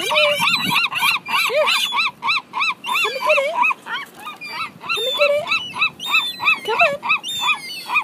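Juvenile gull begging for food: a fast, steady run of high, arched whistling calls, about four a second, slowing a little after the midpoint, with a few lower rising calls mixed in.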